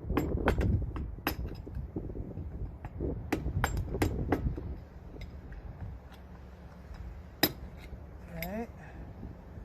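Hammer striking a screwdriver used as a drift to tighten down a truck's wheel hub, a dozen or so sharp metal-on-metal blows at an uneven pace, with a lone sharp strike near the end.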